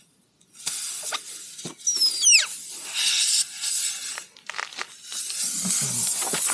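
Air hissing out of a punctured motorcycle tyre through the freshly reamed hole, in spurts and then steadily, with a short squeal falling in pitch about two seconds in and a few scrapes of the tool in the rubber.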